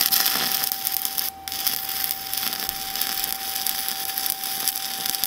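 Shielded metal arc (stick) welding arc from an E7018 1/8-inch electrode running a vertical-up bead: a steady crackling hiss that briefly drops out about a second and a half in.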